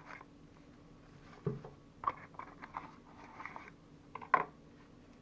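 Faint handling noises from unpacking: a few light taps and short rustles of paper and packaging, spaced out over several seconds.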